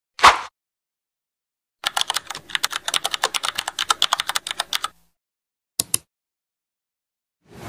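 Keyboard-typing sound effect: about three seconds of rapid key clicks while on-screen text types out. A short burst of sound comes just before it, and a quick double click follows about six seconds in.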